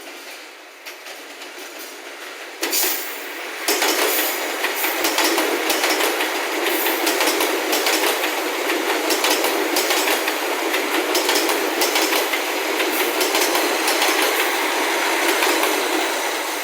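Train passing close by: the noise builds over the first few seconds, then jumps to a steady loud rush full of rapid clicks from the wheels running over the rails.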